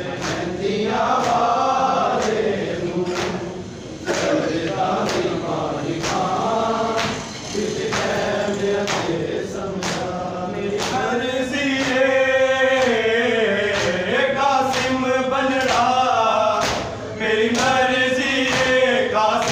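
A group of men chanting a noha, a mourning lament, in unison, over a steady beat of open-handed chest slaps (matam) at roughly one and a half a second.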